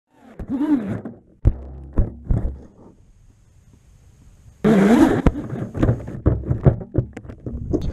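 Music: a few sharp hits in the first half, then a loud, full passage that starts a little past halfway.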